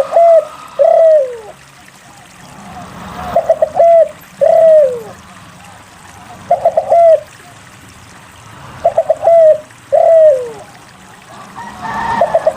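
Spotted dove (derkuku) cooing a repeated phrase about every three seconds. Each phrase is a quick stutter of three or four short coos followed by one longer coo that falls in pitch. A soft rushing hiss swells up before each phrase.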